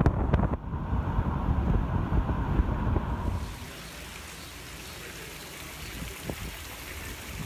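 Wind rumbling on the microphone of a moving car. About three and a half seconds in it cuts to a quieter, steady trickle of splashing water from a courtyard fountain or pool.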